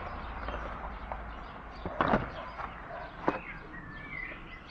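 Clunks and clicks of a cabin filter and its plastic housing being handled by hand, with two loud knocks about two seconds in and a sharper one a little after three seconds.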